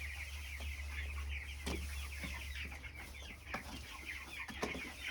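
A large flock of broiler chicks peeping continuously, many short falling chirps overlapping, over a steady low hum, with a few knocks.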